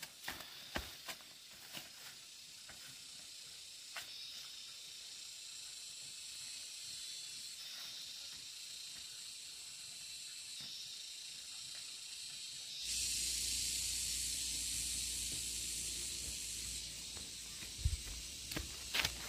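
A few light knocks, then a steady high hiss that slowly grows louder. About thirteen seconds in, the hiss jumps up in level and a low hum joins it.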